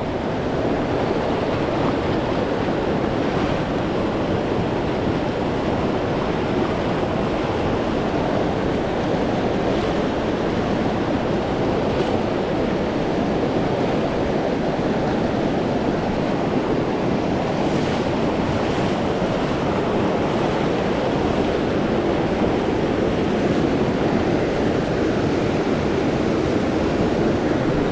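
Small fast-flowing trout stream rushing steadily: a constant, even water noise that does not change.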